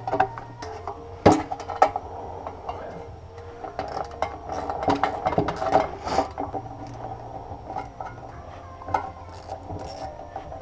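Irregular clinks and knocks of metal parts and a bolt against a metal motorcycle battery box as it is handled and fitted on a workbench.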